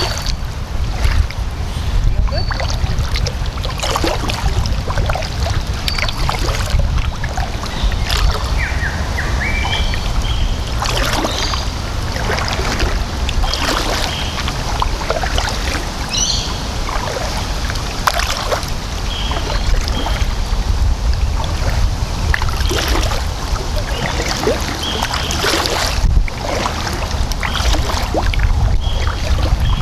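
Kayak paddle strokes dipping and splashing in the water, one about every second or two, over a steady low rumble of wind on the microphone. A few short bird chirps come through.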